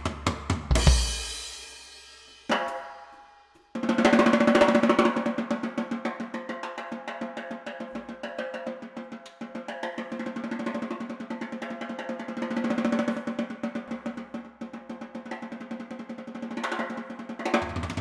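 Percussion music: two heavy drum hits, the first with a cymbal crash, then from about four seconds in a fast, sustained drum roll that swells and eases.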